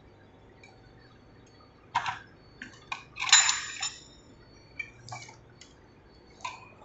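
Metal clinks and clatter from a vacuum contactor's steel frame and parts being handled and shifted: a few separate clinks, then a louder ringing metallic clatter about three seconds in, and lighter clicks after.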